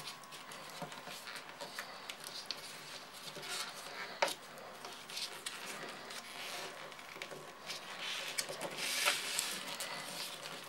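A cardboard strip being coiled up by hand on a tabletop: soft rustling and scraping with small crackles, a sharper click about four seconds in, and a louder rustle near the end.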